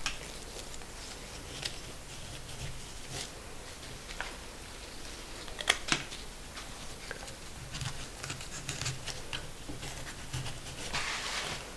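Scattered soft clicks, snaps and leaf rustling as cut rose stems and foliage are handled and pushed into wet floral foam, with two sharper snaps about six seconds in and a brief rustling swish near the end.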